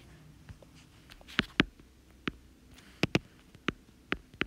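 Stylus tapping on an iPad's glass screen: about eight sharp, irregularly spaced taps over quiet room tone.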